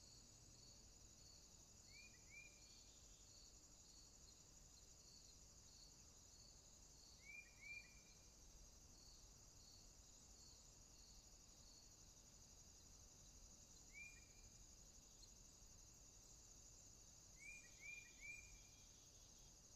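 Faint insect chorus: a steady high trill, with a pulsing chirp about twice a second through the first half. Short chirps in twos and threes stand out a few times, the loudest group of three near the end.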